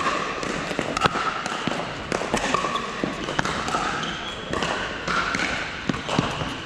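Pickleball paddles striking plastic balls across several courts: many sharp, irregularly spaced clicks that echo around a large hall, over a murmur of distant voices.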